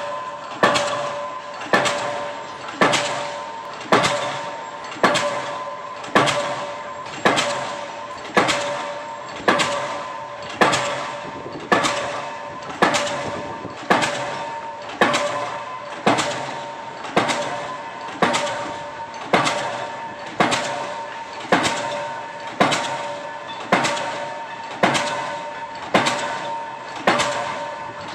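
Diesel pile hammer driving a precast concrete spun pile, striking at a steady beat of about one blow a second, each blow fading before the next.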